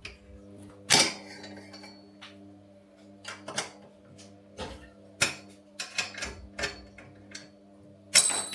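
Metal-on-metal clinks and clacks of a small spanner working on nuts and bolts: a loud clink about a second in, a scatter of lighter clicks in the middle, and a ringing metallic clank near the end. A faint steady hum runs underneath.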